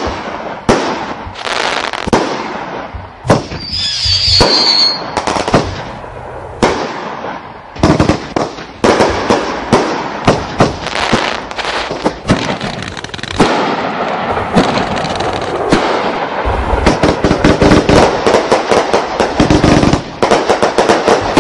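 Fireworks going off: a rapid series of sharp bangs and crackles, with a brief high whistle about four seconds in, then a dense, almost continuous crackle over the last several seconds.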